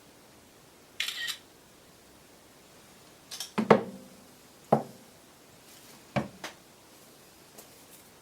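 Hard objects being handled and set down: a short scrape about a second in, then a cluster of sharp knocks, followed by a few single knocks, as sharpening gear is moved about.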